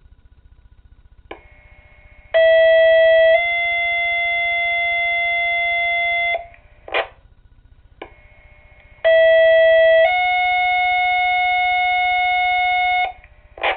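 Fire-dispatch two-tone sequential page tones coming through Motorola Minitor II pagers, heard twice. Each page opens with a click as the transmitter keys up, then a one-second tone, then a steady three-second tone a little higher in pitch, and closes with a short burst of static as the carrier drops.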